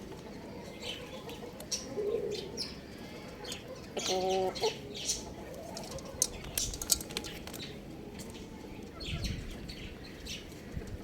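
Young rooster chirping and clucking: scattered short high chirps, with one brief lower call about four seconds in.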